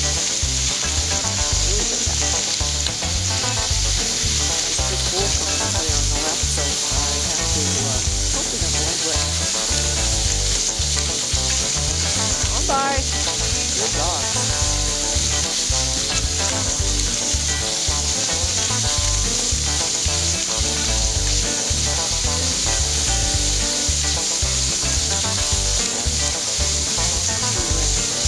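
Steady hiss of dog sled runners gliding over a packed snowmobile trail, with a low uneven rumble underneath.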